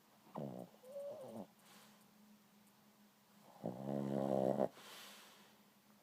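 A pet snoring: two pitched snores, a shorter one about half a second in and a louder one about a second long past the middle.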